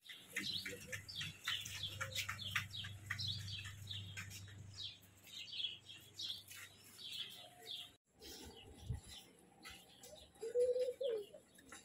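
Small birds chirping busily, many short high chirps in quick succession over a low steady hum. After a sudden break about eight seconds in, the chirps become fewer and fainter.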